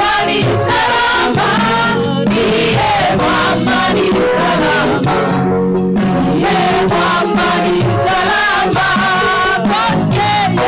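Gospel worship music: a choir of voices singing over steady instrumental backing, with a regular beat of struck percussion.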